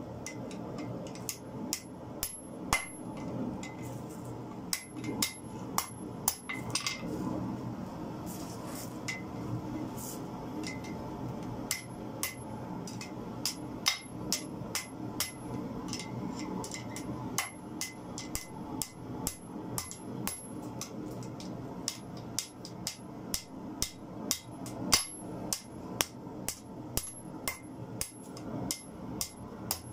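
Blacksmith's hammer striking red-hot car-spring steel on a steel anvil, the blows coming irregularly at first and then about two a second, each with a short metallic ring. A steady low hum runs underneath.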